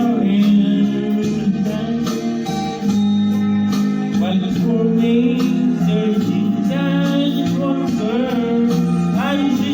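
Karaoke backing music with guitar, and a man singing along, played through a loudspeaker housed inside a broken clothes dryer that serves as a homemade sound box.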